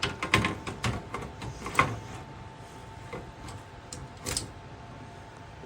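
Scattered light clicks and knocks from handling things, several in the first two seconds and a single one about four seconds in, over a faint steady hum.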